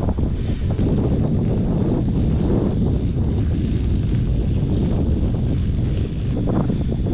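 Steady low rumble of wind buffeting the microphone on a moving bicycle.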